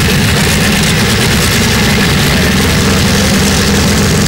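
Modified pulling tractor's engine running at a loud, steady idle while hooked to the pulling sled.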